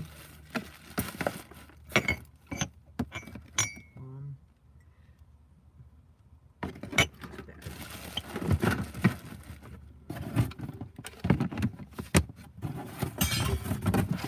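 Clicks, light clatters and rustling as plastic cases and small items are handled and rummaged through, sometimes right at the microphone. It falls quiet for about two seconds a little before the middle.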